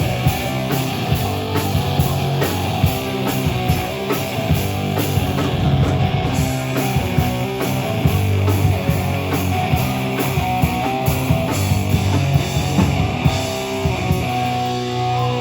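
Live heavy rock band playing loud, with distorted electric guitars, bass and a drum kit hitting steadily throughout.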